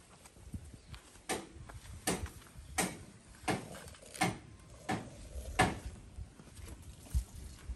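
A series of sharp clicks at an even pace, about one every 0.7 seconds, with one more near the end.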